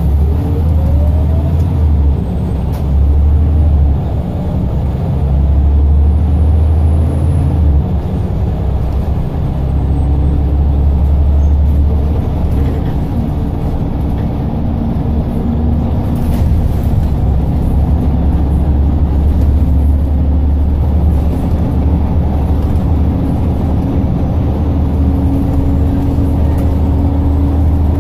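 Diesel bus engine and road noise heard from inside the passenger saloon while the bus is on the move: a steady low drone that shifts in pitch a few times, around 4, 8 and 12 seconds in.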